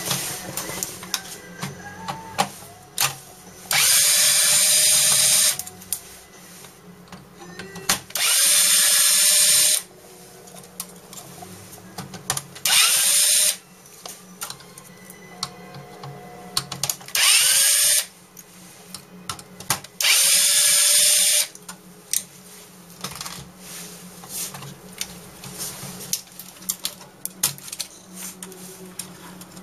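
A handheld power tool running in five short bursts of one to two seconds each. Between the bursts the opened inkjet printer's plastic parts click and rattle as they are handled.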